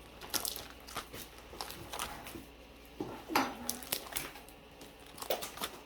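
Pokemon trading cards and plastic card holders being handled and shuffled through, giving irregular light clicks and taps.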